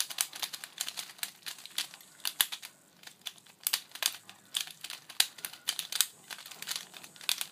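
QiYi stickerless Pyraminx being turned quickly by hand to test its corner cutting: a fast, irregular run of light plastic clacks and rattles as the layers turn, with a brief pause about three seconds in.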